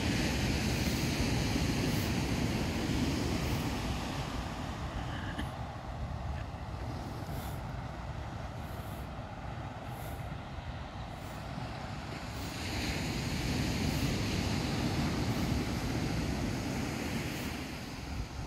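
Ocean surf on a sandy beach: a steady low rumble and hiss of breaking waves, which swells louder twice, once at the start and again past the middle.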